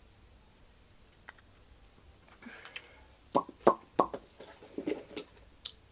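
Small clicks and taps from lipstick tubes and their caps being handled, a cluster of sharp ones about three and a half to four seconds in after a quiet start.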